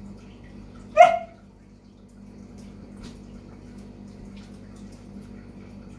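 A dog gives one short, sharp bark about a second in, over a steady low background hum.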